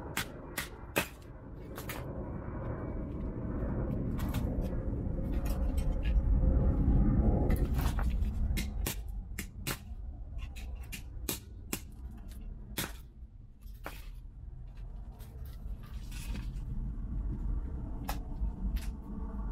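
Smashed plastic and electronic parts of a DJI FPV drone clicking and clattering as they are handled and pulled apart, in scattered sharp clicks and knocks. A low rumble swells and fades in the first half and is the loudest sound.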